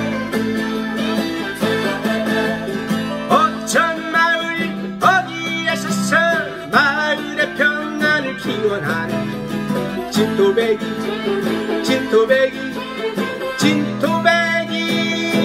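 A man singing a Korean trot song while strumming a Crafter steel-string acoustic guitar. The guitar carries on alone between phrases, and the singing comes back near the end.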